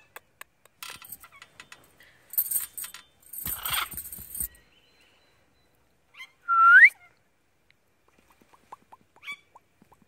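Rose-ringed parakeet giving one loud rising whistle about six and a half seconds in. Before it come scattered clicks and two short bursts of rustling noise; a run of quick soft clicks follows near the end.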